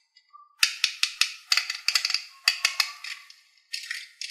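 Red plastic toy airplane handled in the fingers: a quick run of sharp plastic clicks and clatters, then a few short scraping bursts near the end.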